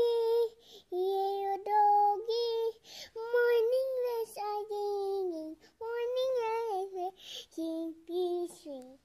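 A young child singing to themself in a high voice: short phrases of held notes, each about half a second to a second long, with brief pauses between them.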